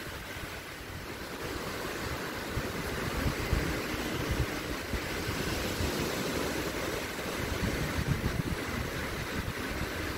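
Small waves breaking and washing up a sandy shore in a steady hiss, with wind gusting on the microphone in low, irregular rumbles.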